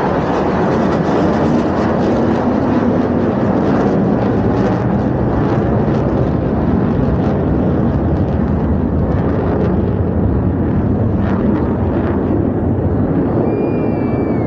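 Loud, steady jet noise from the Blue Angels' F/A-18 Super Hornets flying overhead.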